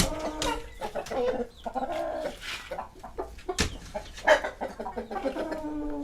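Chickens clucking, with several calls in a row, some of them drawn out, and a sharp knock a little past the middle.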